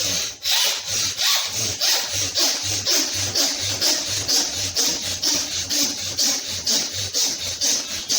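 Rapid, forceful nasal breathing in bhastrika-style alternate-nostril pranayama: air is drawn in through the right nostril and pushed out through the left, in quick, even, hissing strokes of about two to three a second.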